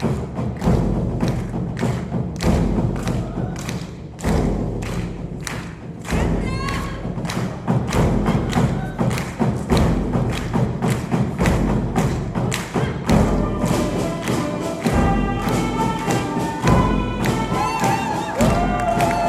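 Music played by an elementary school ensemble, with a steady thudding beat and strong bass notes and held melody notes coming in over the beat in the second half.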